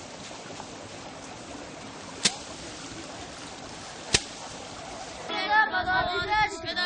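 A sheaf of harvested grain beaten against a wooden block to thresh it: two sharp thwacks about two seconds apart over a steady hiss. About five seconds in, this gives way to a group of young monks chanting their texts in unison, louder than the threshing.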